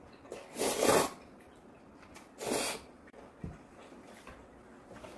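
Noodles slurped twice in quick airy pulls, about a second in and again midway.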